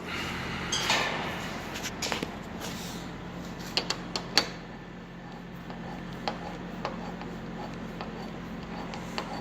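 Hand tools tightening the hardtop's Torx bolts: scattered sharp metal clicks and light knocks, with a quick cluster of three or four about four seconds in, over a steady low hum.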